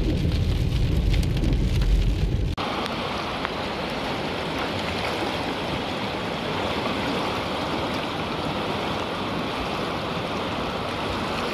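Low road rumble of tyres on a wet highway, heard inside a car, which cuts off abruptly about two and a half seconds in; then a steady, even hiss of water.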